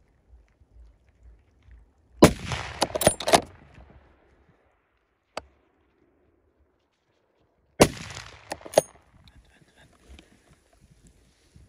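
Two rifle shots from a .300 Winchester Magnum hunting rifle, about six seconds apart, each followed by about a second of echoes rolling back off the surrounding hillsides. A single small click falls between them.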